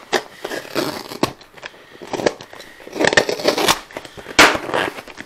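A knife cutting through duct tape and cardboard along the top of a sealed box: a series of irregular scraping, crackling cuts, the loudest near the end.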